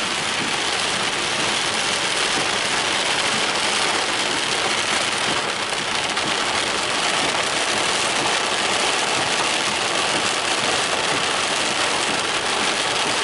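Heavy rain pelting a moving car's roof and windscreen, heard from inside the cabin as a steady, dense hiss.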